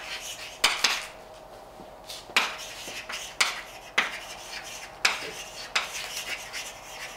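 Chalk writing on a blackboard: scratchy strokes broken by sharp taps each time the chalk strikes the board, about seven taps at uneven intervals.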